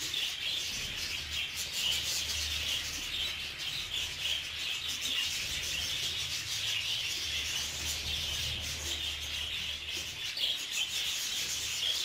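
A flock of budgerigars chattering and warbling without a break: a dense, high, busy twittering that stays at an even level.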